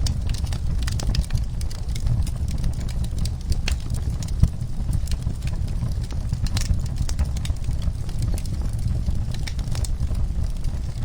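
Wood fire crackling in a fireplace: irregular sharp pops and snaps over a steady low rumble of burning, with one louder pop about four and a half seconds in.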